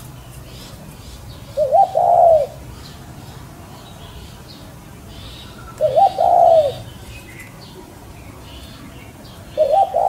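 A dove cooing three times, about four seconds apart, each call a short note followed by a longer, arching one. Faint high chirping from other birds runs behind it.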